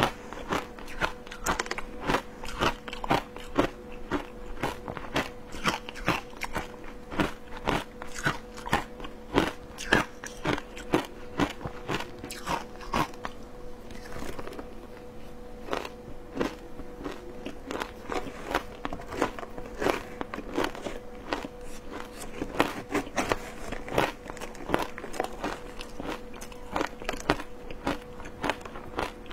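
Close-miked crunching and chewing of matcha-dusted shaved ice, a quick run of sharp crunches at about two or three a second with a short lull about halfway through.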